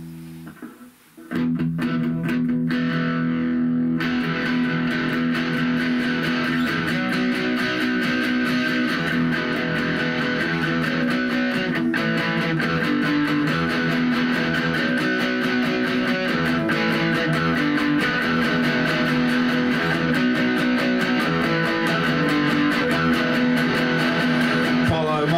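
Electric guitar playing an instrumental song intro, starting about a second in and getting fuller and brighter about four seconds in.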